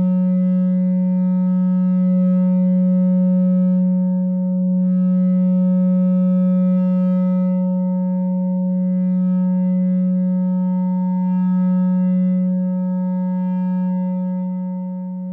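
No-input mixing drone from a two-channel mixer and effect pedal: a steady low tone with fainter higher overtones that swell and fade slowly, dipping a little in level near the end.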